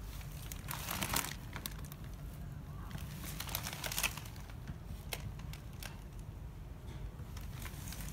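Rustling, crinkling handling noise from a handheld phone being swung about, in bursts about a second in and again around three to four seconds in, with a few small clicks later over a low steady rumble.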